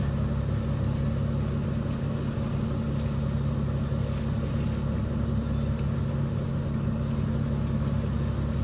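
Fishing boat's engine running steadily, a constant low drone with a fixed pitch.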